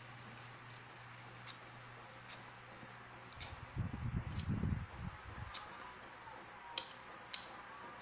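Close-up mouth sounds of someone sucking and chewing a lemon wedge: scattered sharp lip smacks and clicks, with a short run of low muffled thumps about four seconds in, over a faint steady hum.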